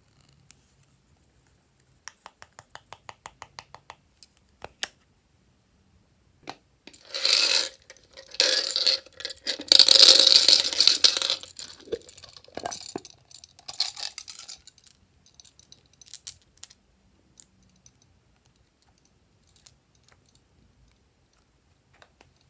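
Hands handling small plastic containers and sequin and bead toppings. A quick run of about a dozen clicks, then several seconds of loud rattling and scraping, then a few scattered small clicks.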